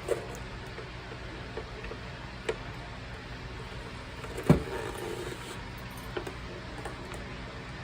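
Parts of a Cadillac CUE touchscreen unit knocking and clicking as they are handled during reassembly: a few scattered taps, the loudest about four and a half seconds in, over a steady low hum.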